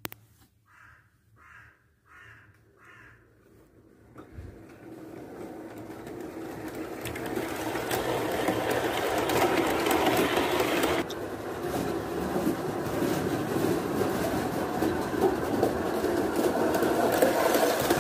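Gauge 1 model train running on its track: a rumble of wheels on rails and the motor's whirr, swelling as the train approaches and staying loud as the coaches pass close by. Four faint short chirps come first.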